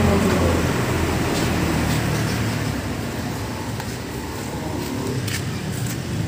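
Steady street noise: a low rumble of passing road traffic, with a couple of faint clicks about five seconds in.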